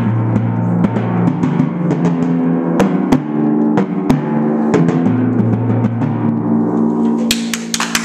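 Orchestral pedal timpani with copper kettles, played with soft felt mallets: quick repeated strokes and rolls sounding a few low, ringing pitches that change as the player moves between drums.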